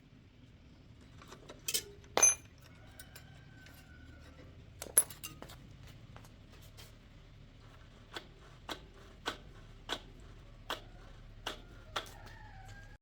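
Small metal parts and tools clinking and tapping: a few sharp clinks about two and five seconds in, then a string of light, evenly spaced taps about every two-thirds of a second.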